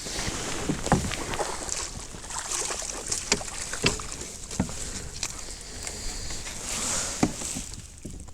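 Scattered knocks and rustling on a fishing kayak as a just-landed bass is handled, with a hiss of water and air behind.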